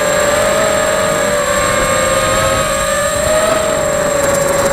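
Electric motors and propellers of an FPV quadcopter heard from its onboard camera: a steady buzzing whine whose pitch wavers slightly with the throttle, over a rushing noise of air.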